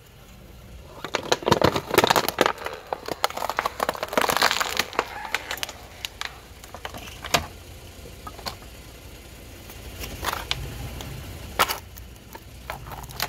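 Thin plastic decorations crackling and crunching under a slowly rolling car tyre: a dense run of crackles and snaps for the first few seconds, then a few scattered single snaps.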